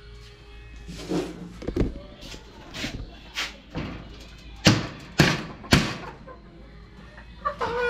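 Claw hammer driving a nail into a wooden cage frame: several scattered strikes, then three louder blows about half a second apart around five seconds in.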